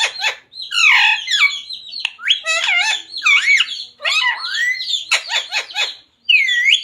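Pet parrot squawking and chattering: a rapid string of harsh calls with sharply sliding pitch, broken by short pauses, with one loud swooping call near the end.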